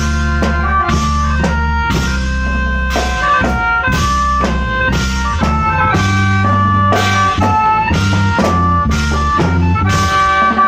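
Applied khaen ensemble playing. The khaen, a bamboo free-reed mouth organ, plays a melody over held chord tones, backed by deep bass notes and a drum kit beating a steady rhythm.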